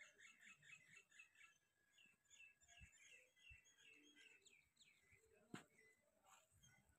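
Faint chirping of small birds: many short, quick chirps one after another. A single sharp click about five and a half seconds in.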